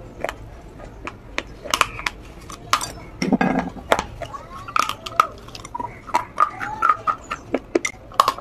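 Crisp clay-pot-shaped biscuit being bitten and chewed close to the microphone: an irregular series of sharp crunches and snaps.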